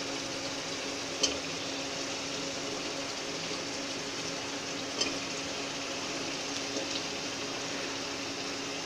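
Steady sizzling hiss of onion-tomato masala cooking in an aluminium pressure cooker, with two short knocks in the pot, about a second in and about five seconds in, as the potato and round gourd pieces go in.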